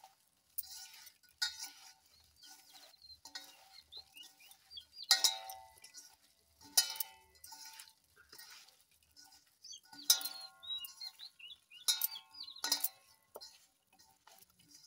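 Hands mixing oily mango pickle pieces and spice masala in a stainless steel bowl: soft squelching and rustling, broken several times by sharp clinks that ring on in the metal bowl.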